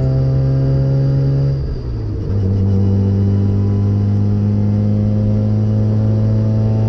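Car engine heard from inside the stripped, roll-caged cabin while driving on track, running at steady revs. About two seconds in the sound dips briefly and the revs drop, then it settles at a lower steady pitch.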